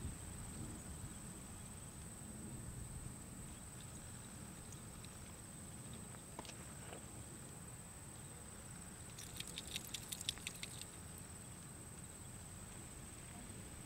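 Faint outdoor background with a steady high-pitched whine and a low rumble. About nine seconds in, a quick run of a dozen or so light clicks lasts just over a second.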